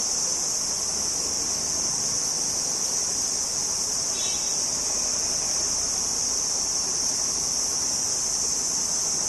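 A cricket singing: one continuous, steady, high-pitched trill.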